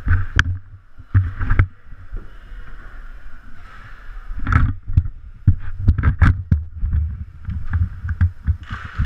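Inline hockey rink noise at the players' bench: a run of sharp clacks and knocks, thickest from about four and a half to seven seconds in, over a low, uneven rumble from movement on the helmet-mounted camera.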